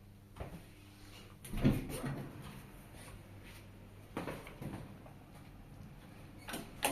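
Mechanical knocks and clicks from a hydraulic elevator: a low hum fades just after the start, then one loud clunk about one and a half seconds in, followed by a few lighter knocks around four seconds in.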